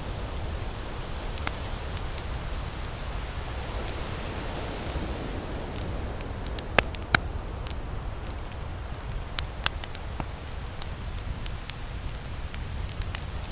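Campfire crackling, with scattered sharp pops and two louder snaps about seven seconds in, over a steady low rushing background noise.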